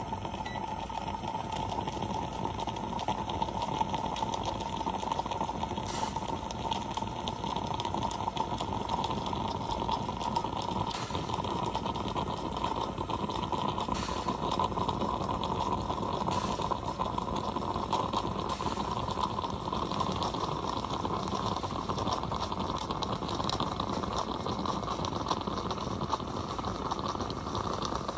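Stainless steel moka pot heating on an electric coil burner: a steady hiss with a faint high tone that creeps slightly up in pitch as the water boils and the coffee starts rising into the upper chamber.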